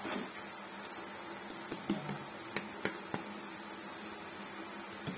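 Light clicks and knocks of a stainless steel colander as drained boiled rice is tipped and shaken out of it into a cooking pot, about half a dozen scattered through the middle, over a faint steady hum.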